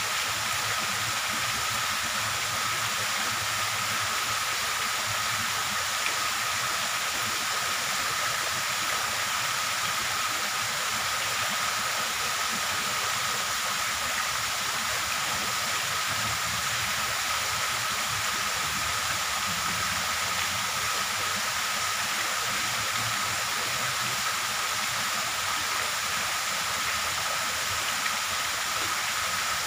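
Steady, even rushing hiss with a thin, steady high tone running through it, unchanging throughout.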